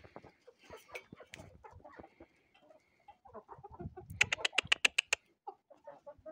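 A flock of hens and roosters clucking and pecking at grain scattered on the ground. About four seconds in, a fast run of about ten sharp clicks, lasting about a second, stands out as the loudest sound.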